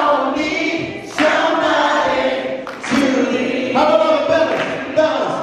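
A group of voices singing together, holding long notes with short breaks between phrases.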